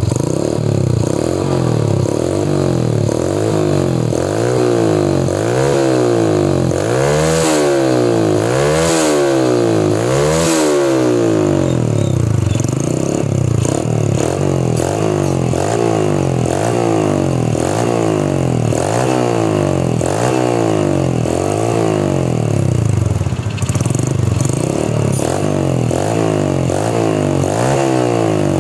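Yamaha Jupiter's air-cooled four-stroke single-cylinder engine revving repeatedly through a rebuilt chrome silencer with a short internal baffle, the pitch climbing and falling with each throttle blip. Deep blips come about every second and a half in the middle, then quicker, shallower revs.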